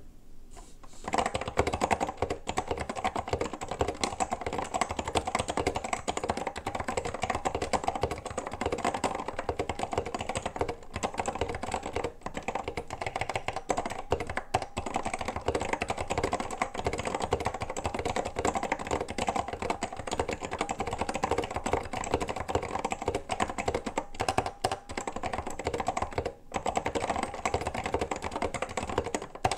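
Apple M0110A keyboard with Mitsumi KAM mechanical switches being typed on steadily: a dense, fast run of key clacks that starts about a second in, with a brief pause near the end. The switches are lightly lubed against their rattly top-out, with the springs left dry so they keep their ping.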